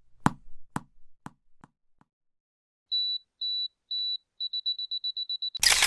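Logo-animation sound effects. First a bouncing thump, five bounces getting quicker and fainter. Then a camera self-timer's high beeping, three spaced beeps followed by a fast run, ending in a short loud shutter-like burst of noise near the end.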